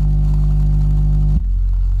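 Yamaha YST-SW030 8-inch subwoofer playing a loud, steady low test tone with a buzzy edge, which switches abruptly to a different low tone about a second and a half in.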